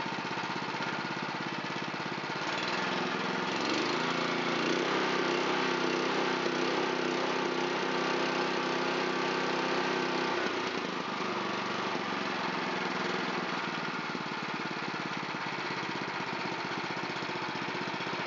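Honda GX270 single-cylinder four-stroke engine on a water pump idling, then sped up about two and a half seconds in, held at higher speed for several seconds, and dropped back to a steady idle about eleven seconds in. With its carburetor freshly cleaned, it makes a nice, even idle.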